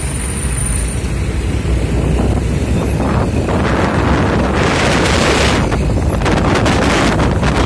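Wind buffeting the microphone of a moving vehicle over a steady low road and engine rumble, the gusts growing stronger about halfway through.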